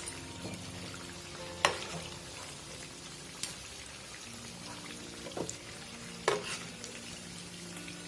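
Breaded chicken cheese cutlets frying in hot oil with a steady sizzle, broken by four sharp clinks of a utensil against the pan as the browned cutlets are lifted out. The loudest clinks come about a second and a half in and again near the end.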